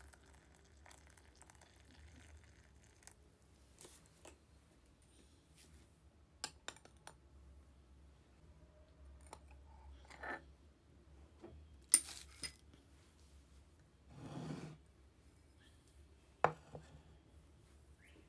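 Kitchen handling sounds of utensils and glassware. Scattered small clicks and light knocks, with a sharp clink about twelve seconds in, a short rush of noise a couple of seconds later, then another sharp knock.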